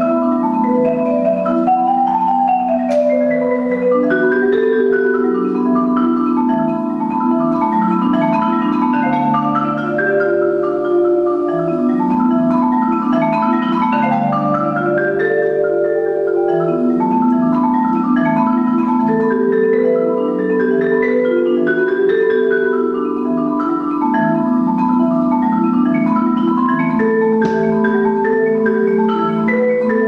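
Solo Musser concert marimba played with mallets: sustained rolled notes in the low and middle range under rippling figures that climb and fall.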